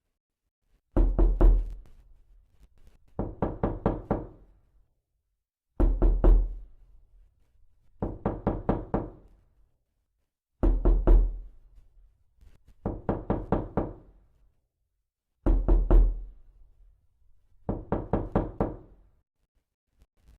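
Knocking in quick runs of about five or six raps. Each louder run is followed about two seconds later by a slightly softer one, and the pair repeats evenly four times as a loop.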